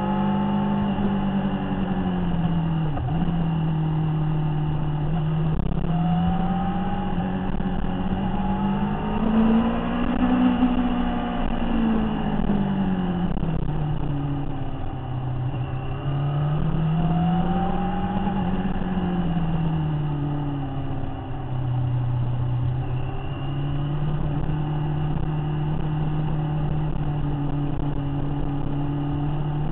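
Motorcycle engine heard from an onboard camera, its pitch rising and falling as the throttle is opened and eased through a series of bends, with a brief dip about three seconds in.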